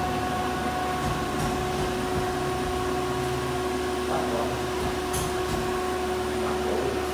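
Plasma cutting torch on a CNC cutting run, giving a steady hiss of air and arc with a constant whine held at one pitch.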